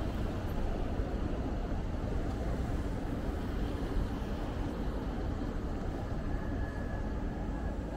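Steady city street ambience: a constant low rumble of distant traffic and urban noise, with a faint thin tone in the last couple of seconds.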